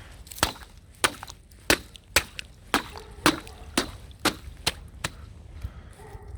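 Fox lapping water, a short, sharp wet click about twice a second.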